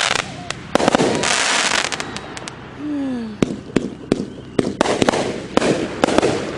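A 25-shot firework cake firing: a quick series of sharp launch thumps and bursting reports, with a second-long rush of dense noise just after one second in.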